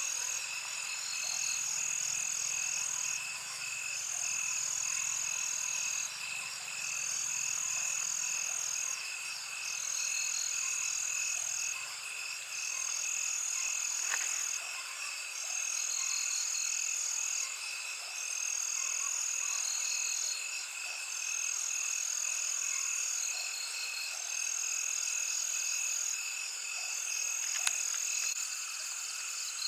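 Wild animal chorus: a shrill, high-pitched call pulsing in a regular rhythm, each pulse about two seconds long and one about every three seconds, over a steady high drone. A faint low hum underneath stops about halfway through.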